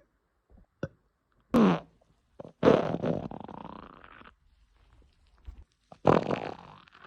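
Human farts: a short one with a falling pitch about a second and a half in, a longer one a second later that trails off over about a second and a half, and another about six seconds in.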